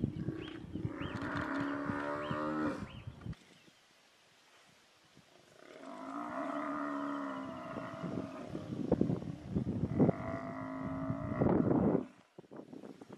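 African buffalo bellowing in distress, three long drawn-out moans, as lions hold it down; low grunts and scuffling in the grass around the first call.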